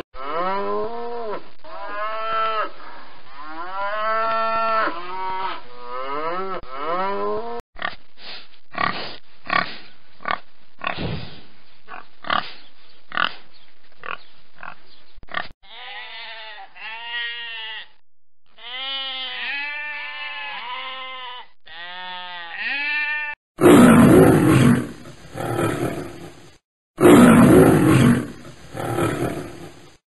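A calf bawling in a run of repeated calls, then a series of short sharp sounds, then sheep bleating over and over. From about three-quarters of the way through, a lion roars loudly in rough bursts.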